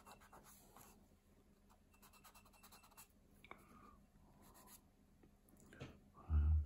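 Light, scratchy drawing strokes on paper, coming in short runs of quick strokes. A brief low thump comes just before the end.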